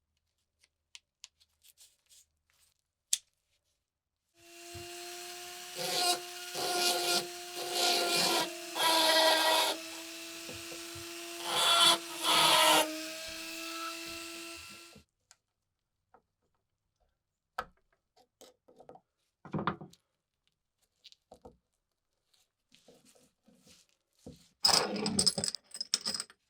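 Small electric power tool running steadily for about ten seconds with a constant whine, cutting into the work in about six loud grinding bursts. Scattered small clicks and knocks follow, then a short scraping burst near the end.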